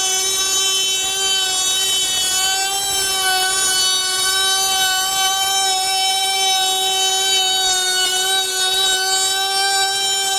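Milwaukee M18 FUEL cordless compact router running at full speed with a roundover bit, cutting along a board's edge: a loud, steady high whine that holds its pitch.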